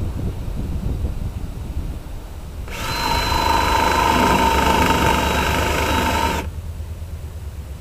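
Ryobi power drill running at a steady speed for about three and a half seconds, starting about 3 s in and then stopping, with a low rumble underneath.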